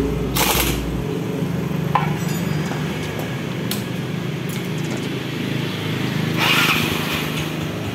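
A short burst from an impact wrench about half a second in. About six seconds in, the electric starter of a carburettor Yamaha Mio scooter is pressed and its single-cylinder engine cranks and starts, a sign that the repaired starter now engages the pulley instead of slipping.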